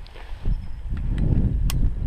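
Low rumble of wind and handling noise on a gun-mounted action camera, with two faint sharp cracks in the second half.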